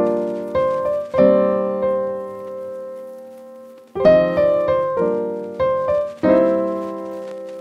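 Background music on a keyboard: chords struck and left to ring out and fade. There is one long chord about a second in, then a quicker run of chords from about four seconds.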